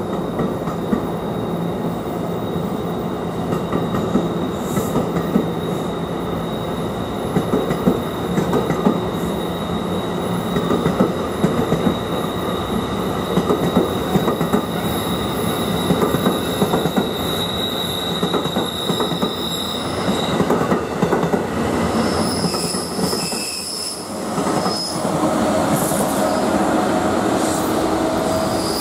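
A train running close by on the rails: a steady loud rolling noise with thin, high-pitched wheel squeal. Near the end the noise dips briefly, then new squeal tones come in.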